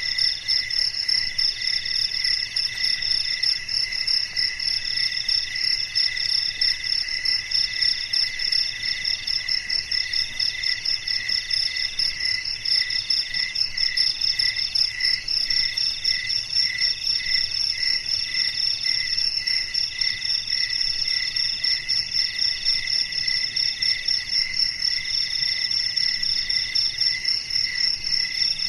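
Night chorus of several insects singing together at different pitches: a fast-pulsing high trill, a lower trill pulsing a few times a second, and a middle one that comes in repeated phrases about a second long with short breaks.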